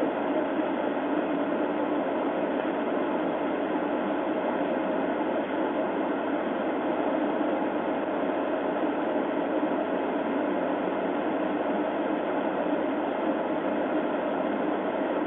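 Steady, even hiss of static on a police dashcam's audio track, with no distinct events.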